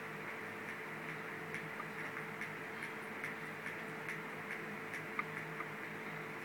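Faint light ticks, a little over two a second, from a hex driver turning a screw into the plastic front bumper of a Traxxas Slash 4x4, over a steady low room hum.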